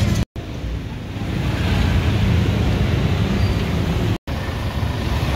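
Steady outdoor street noise, mostly a low traffic-like rumble with a light hiss above it, broken by two brief silent gaps.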